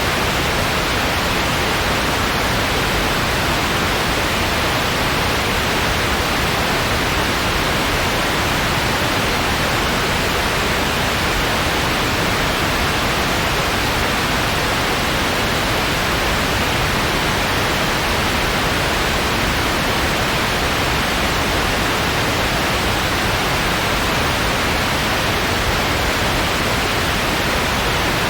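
Steady, unchanging white noise: an even hiss, strongest in the upper-middle range, with no rhythm or events.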